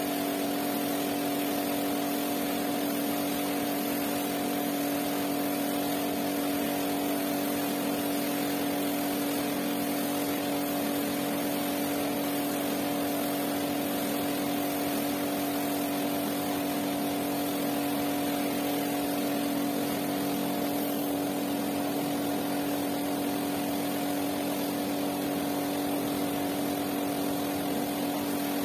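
Pressure washer running steadily: its motor and pump hum at a constant pitch under the hiss of the water jet spraying onto a soaked rug.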